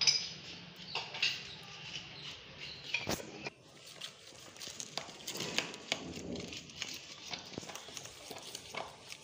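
A spoon clinking and scraping against a stainless steel bowl as a thick marinade paste is mixed, with irregular knocks. About three and a half seconds in, the knocks give way to softer, quieter ticks and scrapes of the mixing.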